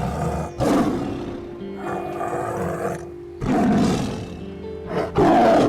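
A big cat, lion or tiger, roaring three times in rough, loud bursts over background music with steady held tones.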